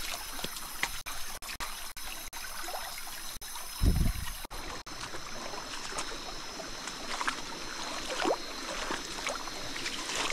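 Small stream trickling and running over rocks, with a few faint steady high tones above it. A single low thump about four seconds in.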